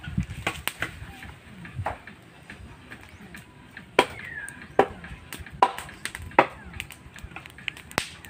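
Firewood being chopped: sharp strikes, evenly spaced less than a second apart, the loudest starting about halfway in, with a short falling whistle among them.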